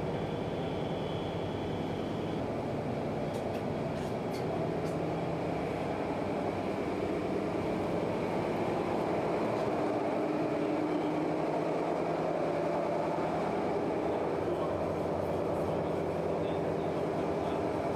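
Steady drone of a fireboat's engines and machinery, heard below deck. It grows a little louder about a third of the way through, with a few faint knocks.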